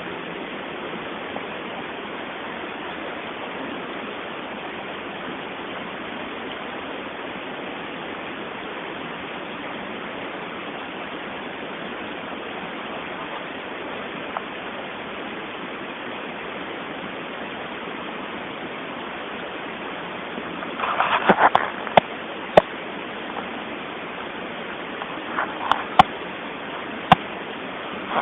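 Steady background hiss throughout. In the last several seconds come a cluster of short scraping or smacking noises and a few sharp clicks, the clicks being the loudest sounds.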